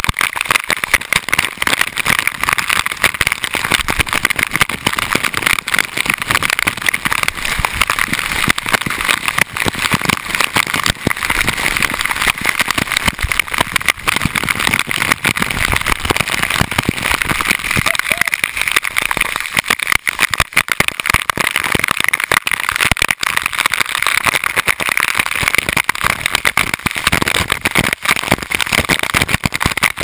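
Waterfall water pouring and splashing directly onto a waterproof camera housing: a loud, steady rush thick with the crackle of drops striking the case.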